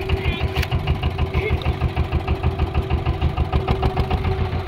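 Small river boat's engine running steadily under way, with a fast, even chugging pulse and a constant hum.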